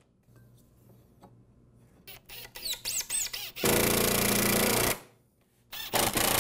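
Cordless drill running hard in two long runs of about a second each, driving screws into wooden arm braces, with a few short clicks and squeaks before the first run.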